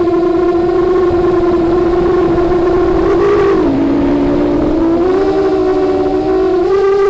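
FPV drone's electric motors and propellers whining as heard through the onboard camera. The pitch dips about halfway through, then rises again.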